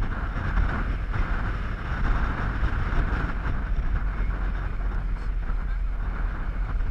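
Steady low rumble of a vehicle driving along, with wind rushing over the microphone.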